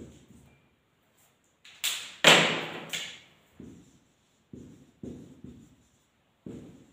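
Marker pen strokes on a whiteboard as words are written, with a loud rushing whoosh about two seconds in that dies away over about a second.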